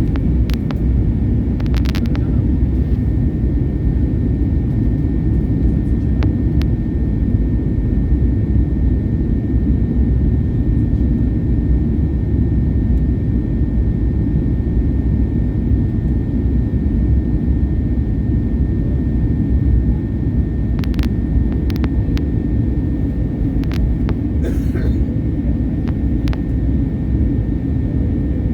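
Steady low drone of an airliner's cabin in flight, engine and airflow noise, with a faint steady high tone and a few brief clicks.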